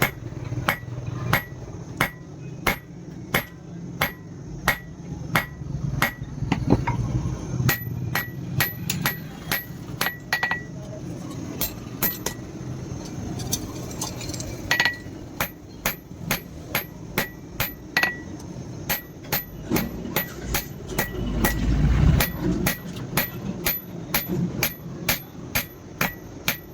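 Blacksmith's hand hammer forging steel on an anvil: steady blows about two a second, each with a short metallic ring, with a brief pause about halfway through.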